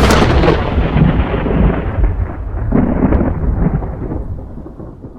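Loud thunderclap and rolling rumble, fading away gradually.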